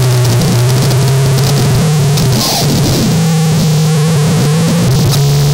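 Harsh noise music: a loud, unbroken wall of distorted static and hiss over low droning tones that step to a new pitch a few times.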